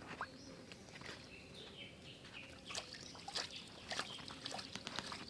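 Birds chirping and calling faintly, short scattered calls over quiet outdoor ambience, with a few light clicks.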